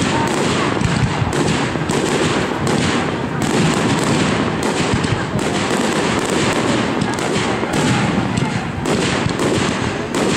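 Aerial fireworks display: shells bursting overhead in a steady run of bangs, about one or two a second, over continuous crackling.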